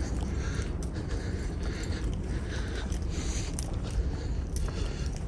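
Soft footsteps and clothing rustle of someone walking, about one a second, over a steady low rumble.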